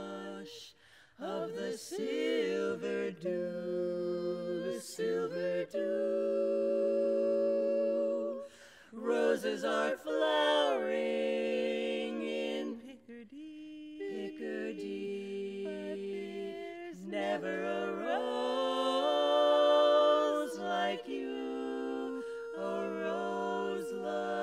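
Women's barbershop quartet singing a cappella in four-part close harmony, holding long chords between moving phrases, with brief breaks about a second and about eight seconds in.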